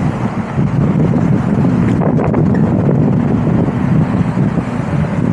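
Wind buffeting the microphone during a scooter ride: a loud, steady low rush, with a few light clicks about two seconds in.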